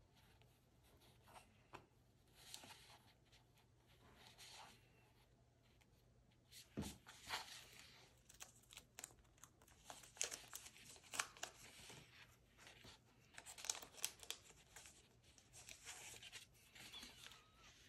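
Quiet crinkling, peeling and small taps of plastic sticker sheets as colored strip stickers are peeled off and pressed onto a paper diary page, mostly from about seven seconds in.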